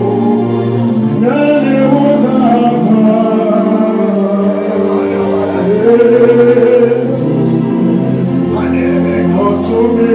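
A man singing a gospel worship song into a microphone over sustained instrumental backing, holding long notes.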